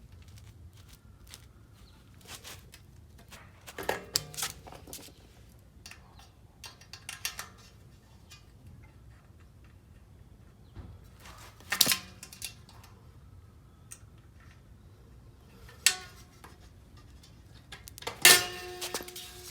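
Metal tools and parts being handled: scattered small clicks and clinks, with a few louder metallic clanks. The last clank, near the end, rings briefly.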